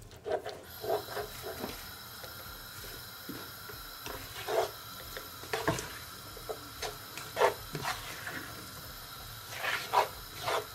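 Black plastic slotted spoon stirring callaloo and shrimp in a non-stick frying pan: irregular scrapes and light knocks against the pan, several louder ones near the middle and the end, over a faint steady sizzle.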